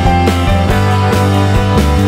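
Background music: a rock track with guitar, bass and drums.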